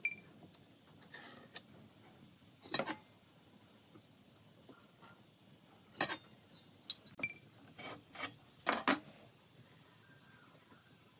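Scattered light knocks and clinks of things being handled, irregular and a few seconds apart, with the loudest a quick pair about nine seconds in.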